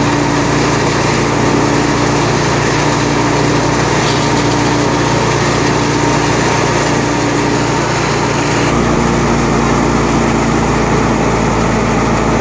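Tractor-driven wheat thresher running steadily under load, its drum and belts turning off the power take-off of a Fiat 640 tractor's diesel engine. The hum drops slightly in pitch about nine seconds in.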